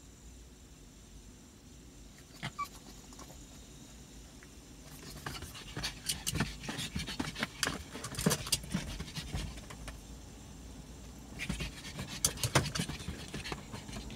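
A dog panting in quick, short breaths, starting about five seconds in, easing off briefly, then picking up again near the end.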